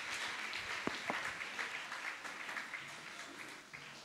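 Congregation applauding with many overlapping hand claps, the clapping gradually dying away.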